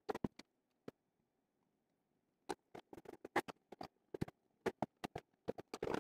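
Sharp clicks and knocks of hard plastic parts being handled and fitted together, with a hand hex driver turning a screw into a 3D-printed corner bracket on a clear plastic container. A few scattered clicks, a silent gap of about a second and a half, then denser clicking in the second half.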